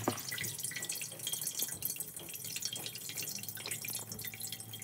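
Water dripping and trickling out of a partly loosened kitchen-sink P-trap into a metal bowl, as the standing water from the clogged drain is let out of the trap before it is opened. One light knock sounds right at the start.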